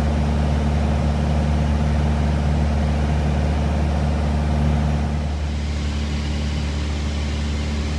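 Light aircraft engine and propeller droning steadily in flight, a steady low hum that turns a little quieter about five seconds in.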